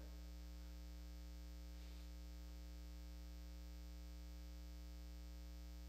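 Steady electrical mains hum in the recording, low and unchanging, with a very faint brief noise about two seconds in.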